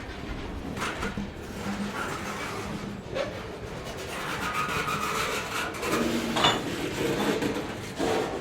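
Slow-moving train rolling on the rails: steady rumbling noise with scraping, a faint squeal around the middle, and a few sharp knocks.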